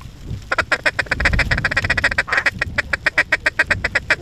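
Mallard duck call blown in a fast run of short quacks, a feed chatter calling mallards in to the decoys, starting about half a second in.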